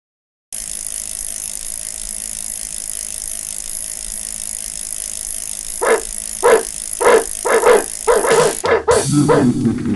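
A dog barking: a run of about ten short barks, starting about six seconds in and coming faster toward the end, over a steady hiss.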